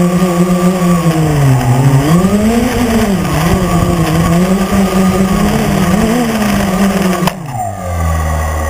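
Quadcopter's electric motors and propellers whining close to the camera, the pitch rising and falling as the throttle changes while it descends. About seven seconds in the pitch drops sharply as it touches down, and the motors run on at a low pitch.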